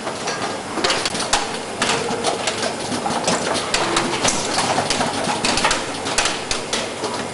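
Automated soldering machine at work, with irregular mechanical clicks and clatter over a steady noisy background.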